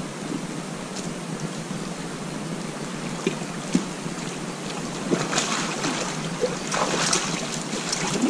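Steady rush of river water around a wading angler, with two short knocks about a third of the way in. From about halfway on, a hooked sockeye salmon splashes more and more at the surface as it is brought in to the net.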